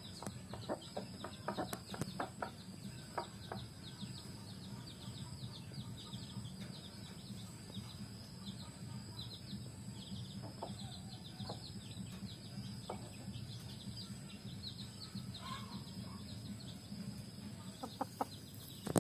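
Ayam kampung (free-range village chickens) clucking, with many short high chirps throughout. Clusters of short sharp clicks come in the first few seconds and again near the end, over a low steady hum.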